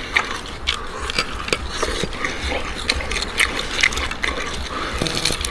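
Chewing and lip-smacking on charred roast lamb leg: a steady run of small wet clicks and crackles from biting and tearing the meat. A low hum runs underneath.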